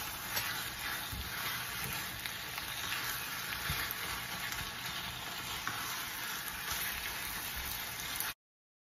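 Ground chicken and onions sizzling in oil in a nonstick pan over medium-high heat, with a spatula stirring and scraping through the mix. The sound stops abruptly near the end.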